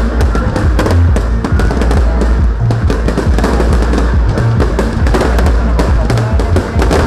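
Fireworks display: rapid, irregular bangs and crackles of bursting shells, several a second, over loud music with a heavy bass beat.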